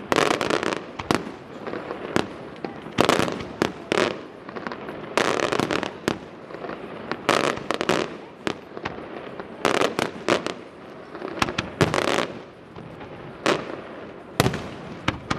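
Aerial fireworks display: shells bursting in a rapid, irregular series of sharp bangs, some single and some in quick clusters, often less than a second apart.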